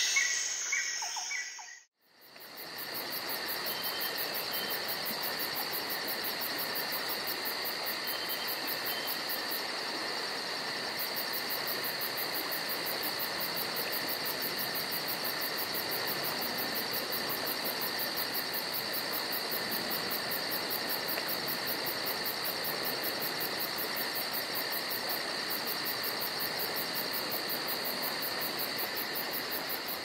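A steady insect chorus, a continuous high chirring with a fast even pulse, over a steady hiss. It starts after a short gap about two seconds in.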